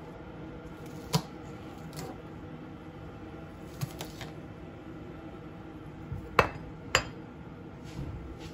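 Scattered knocks and clinks of a kitchen knife and dishes as bok choy is cut on a cutting board by a stainless-steel sink, the two loudest clinks coming about six and a half and seven seconds in, over a steady low hum.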